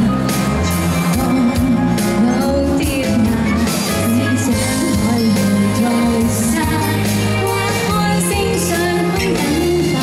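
A woman singing a song live to instrumental accompaniment with a steady bass and drum beat.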